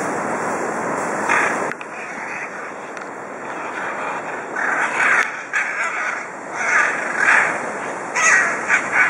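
Scarlet macaws giving harsh, raspy squawks: one about a second in, then a run of calls in the second half. Under the first two seconds there is a steady rushing background noise.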